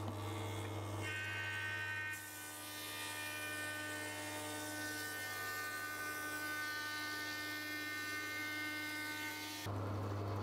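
Steady electrical hum with faint, steady whining tones above it. The low hum drops away about two seconds in and comes back near the end.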